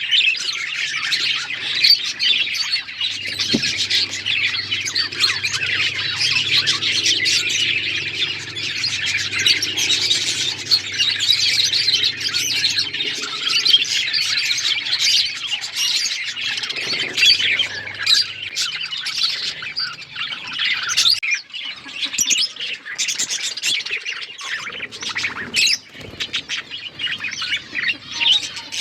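Several budgerigars chirping and chattering in a dense, continuous stream of high chirps, thinning out somewhat in the last several seconds.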